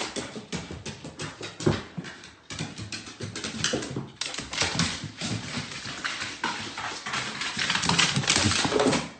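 Bull terrier's claws clicking and scrabbling on hardwood stairs as it makes its way down, a rapid, uneven clatter of taps that grows louder near the end.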